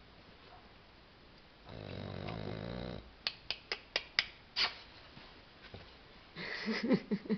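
A French bulldog snores once, a loud snore lasting about a second. A quick run of about six sharp clicks follows, then a rapid pulsing sound near the end.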